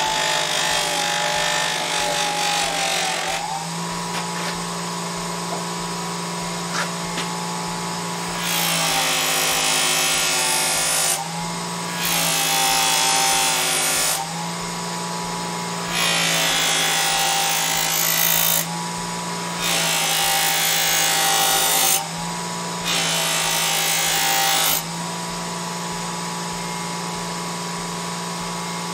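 Electric bench buffer running steadily with a stitched cloth buffing wheel. For the first few seconds a bar of white jeweler's rouge is pressed against the wheel to charge it. Then a knife blade is pressed to the wheel in five passes of two to three seconds each, each pass adding a loud hiss while the motor slows slightly under the load.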